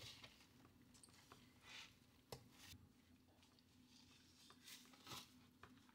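Near silence, with faint soft rustling and squishing from gloved hands working stuffing and butter into a raw turkey, and one small click about two seconds in.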